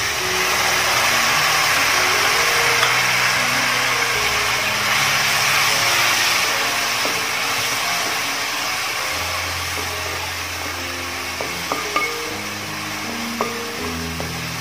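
Hot onion-tomato masala sizzling loudly as kudampuli (Malabar tamarind) soaking water is poured into the pan, the hiss starting suddenly and slowly dying down. In the second half a wooden spatula stirs the masala with a few taps against the pan.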